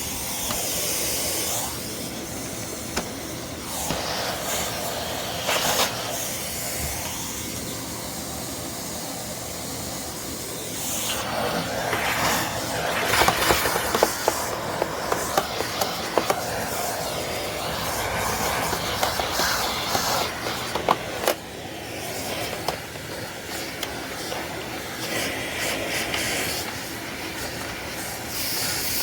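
Vacuum cleaner running with a steady rushing hiss that shifts in pitch as it works, with a scatter of clicks and rattles around the middle.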